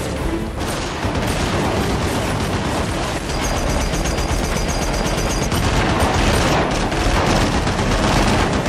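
A helicopter door-mounted machine gun firing in rapid, continuous bursts.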